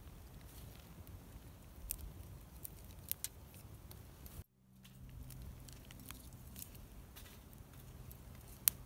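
Scattered sharp clicks and crackles over a low rumble, with a louder single crack near the end. About halfway through, the sound cuts out abruptly and comes back with a low steady hum underneath.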